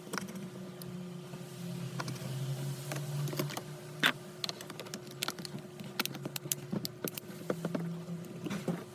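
Many light, irregular clicks and taps over a steady low hum.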